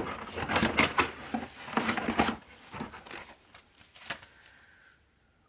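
Paper and cardboard packaging being handled and unpacked: dense rustling and crinkling for the first two seconds or so, then a few scattered softer rustles and knocks.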